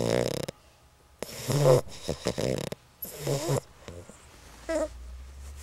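English bulldog puppy snoring in its sleep: a run of pitched snores, each under a second, with short pauses between them and fainter ones near the end.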